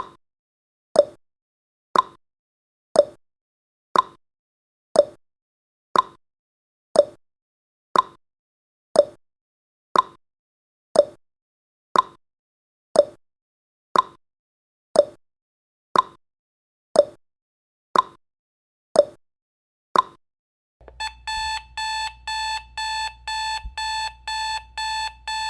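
Tick-tock sound effect of a countdown timer, one tick a second alternating between a lower and a higher pitch. About twenty seconds in it gives way to rapid electronic alarm beeping, the signal that the countdown has reached zero.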